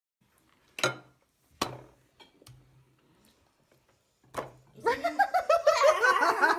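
Dishes and cutlery clinking on a breakfast table: three separate sharp clinks. About five seconds in, children's high voices start up and become the loudest sound.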